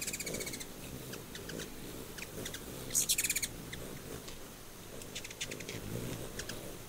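Ruby-throated hummingbirds giving rapid, high twittering chatter in short bursts: one right at the start, the loudest about three seconds in, and a few shorter ones near the end, over a low, steady wing hum.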